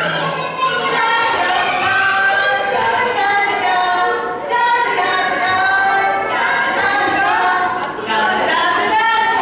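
A group of young children singing together without accompaniment, many high voices at once.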